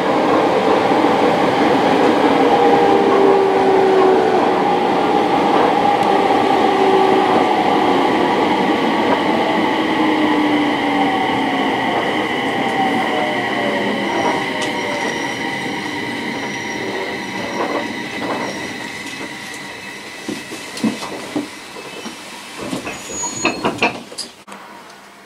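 Electric commuter train braking to a stop at a station, heard from inside the car: the running noise and motor tones fall in pitch and fade, over a steady high squeal. A few clicks and knocks come near the end as the train comes to a halt.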